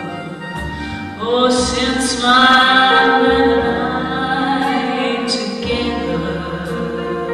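A woman singing a slow melody with long held notes over instrumental accompaniment with a low bass line. The voice grows louder about a second in.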